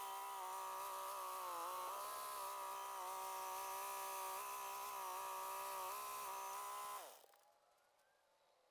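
A steady, pitched mechanical buzz from a small motor, dipping slightly in pitch now and then, fading out about seven seconds in.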